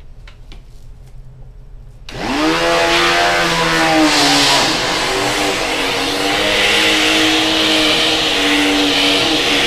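Vacuum cleaner switched on about two seconds in, its motor spinning up with a rising whine and then running steadily, the pitch wavering a little as the bristle-brush nozzle sucks loosened dust from a laptop's vents.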